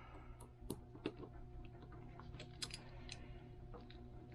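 Faint, irregular clicks and taps of small metal parts of a rifle magazine release being handled and fitted together by hand on a bench pad, over a low steady hum.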